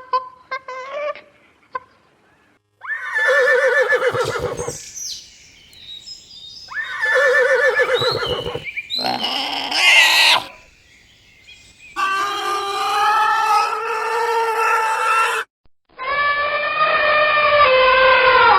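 A string of different farm animal calls. A few short high chirps come first, then two long wavering calls a few seconds apart and a shrill squeal. Two long steady calls follow near the end.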